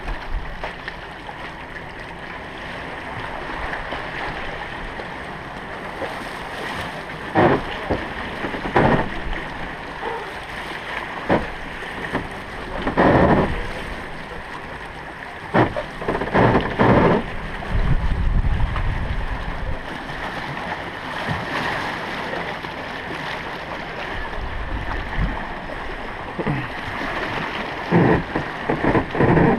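A wooden gulet on its steel launch cradle sliding down a boatyard slipway: a steady noise with wind on the microphone, broken by several short loud sounds.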